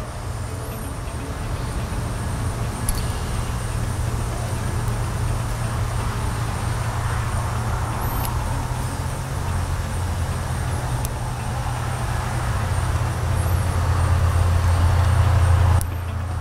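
A steady low mechanical drone, like a running engine, that grows louder and deeper about halfway through and drops off abruptly near the end. A few faint ticks sound over it.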